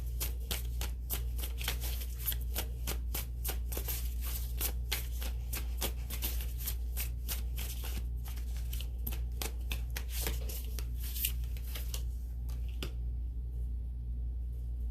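Tarot cards being shuffled by hand: a rapid run of card flicks and riffles that stops about two seconds before the end, over a steady low hum.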